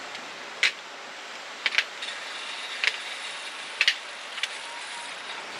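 Several sharp, separate clinks of small hard objects, about six spread over the few seconds, over a steady hiss.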